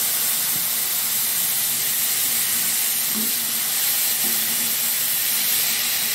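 Cauliflower florets sizzling in hot oil and fried masala in a kadai as they are stirred in: a steady, loud frying hiss, with a couple of light scrapes of the spoon a few seconds in.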